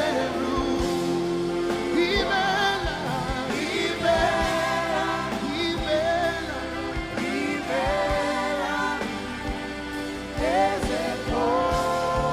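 Live gospel worship music: a singing voice holding and sliding between long notes over a band, with regular drum hits.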